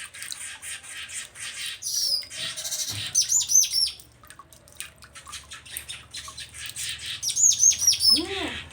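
Streaked weaver (manyar jambul) singing: a rapid, dry ticking chatter broken by two runs of about five quick, falling high whistles, one about three seconds in and one near the end.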